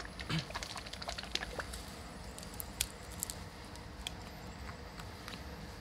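Faint, scattered light clicks and taps of small objects being handled, over low steady room noise.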